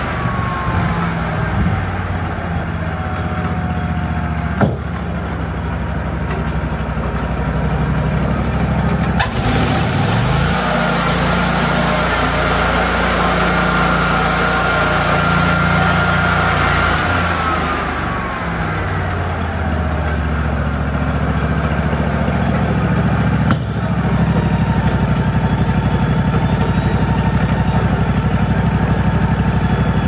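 Wood-Mizer sawmill and edger engines running steadily. Through the middle stretch an engine pulls up in pitch and a blade cuts through wood with a loud hiss, then the engine drops back. Two sharp knocks of lumber being handled.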